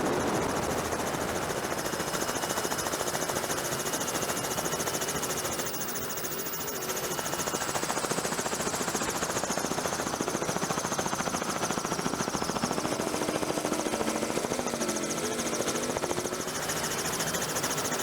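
Helicopter running overhead: a steady, fast beating of the rotor over a constant turbine-and-wind rush.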